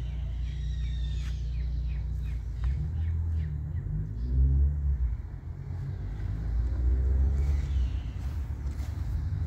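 Low rumble of a car on the street, swelling twice, about four and seven seconds in, as the engine pulls, with small birds chirping during the first two seconds.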